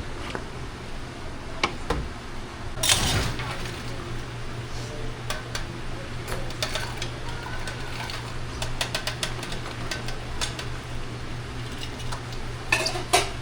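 Ice machine with a steady low hum; about three seconds in, a burst of ice cubes drops from it into an insulated drink jug, followed by scattered clinks of ice, and another clatter near the end.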